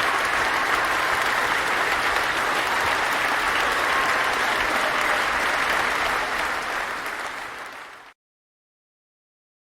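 A large audience applauding, a dense steady patter of many hands clapping that dies away over a couple of seconds near the end and then cuts off into silence.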